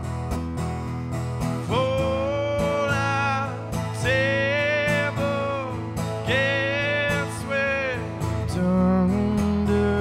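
Solo male singer with a strummed acoustic guitar: steady guitar strumming throughout, and a voice singing long held notes that come in about two seconds in and return roughly every two seconds.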